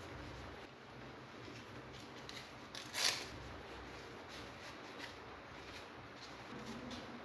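Fabric work gloves being handled and laid on a tabletop: faint rustling and light taps, with one brief, louder rustle about three seconds in.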